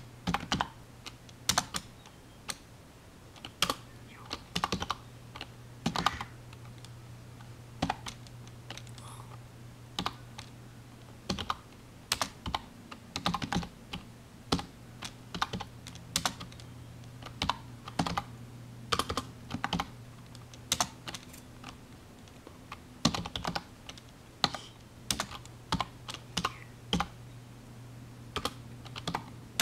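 Typing on a computer keyboard: irregular keystrokes in short bursts with brief pauses between them, over a steady low hum.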